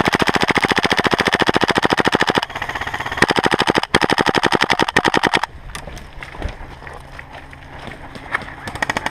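Airsoft rifle firing full-auto in long rapid bursts, emptying a magazine. The fire changes about two and a half seconds in, breaks off briefly near four seconds, then resumes and stops about five and a half seconds in, leaving faint scattered pops.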